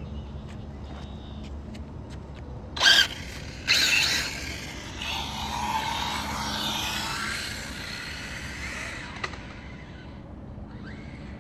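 Radio-controlled drift car driving on asphalt: a short, sharp pitched squeal about three seconds in, then a sudden burst of tyre scrub and motor whine that rises and falls in pitch, swells and fades away over several seconds.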